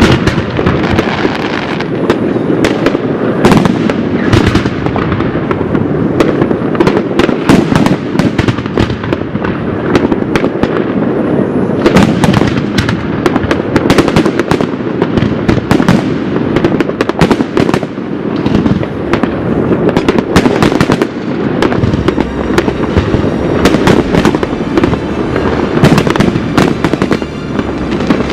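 A mass of fireworks going off at once: a continuous barrage of overlapping bangs and crackles with no pause.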